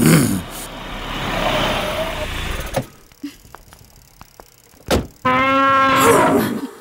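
A car pulls up and stops, a few small clicks follow, and a car door shuts with a single sharp thunk. Right after, an elephant gives one long call that falls in pitch at the end.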